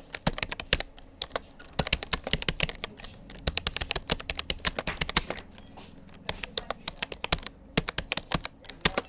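Rapoo computer keyboard keys clicking under steady touch typing, in quick runs of keystrokes broken by two brief pauses.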